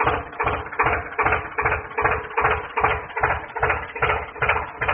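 Diesel tractor engine chugging at a slow idle, an even beat of about two and a half knocks a second.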